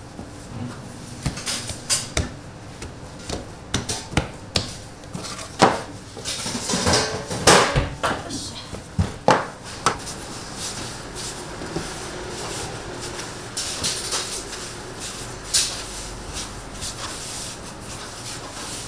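Irregular knocks and clatter of kitchen utensils and containers, busiest in the middle and thinning out toward the end.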